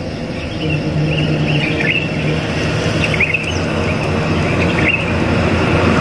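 Laras intercity bus coming up the road, its engine and tyre noise growing steadily louder as it nears. Birds chirp a few times over it.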